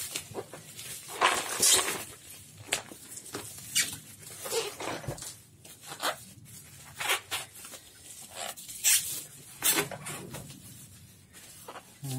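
Irregular rustling, crinkling and scraping of parcel packaging and bubble wrap as a boxed board game is handled and pulled out.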